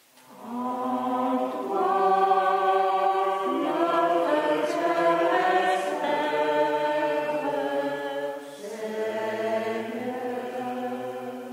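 Voices singing a slow chant in long held notes, with a pause for breath about eight and a half seconds in, ringing in a reverberant stone church.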